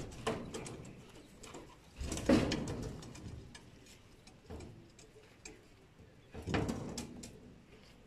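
Domestic pigeons cooing and shuffling about in several separate short bouts, with scattered light clicks and scuffs; the loudest bout comes about two seconds in and another after about six seconds.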